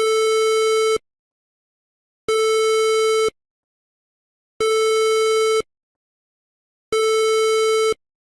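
Emergency alert alarm tone: four long beeps at one steady pitch, each about a second long and a little over two seconds apart.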